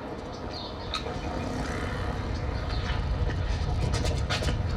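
Low vehicle engine rumble, growing steadily louder.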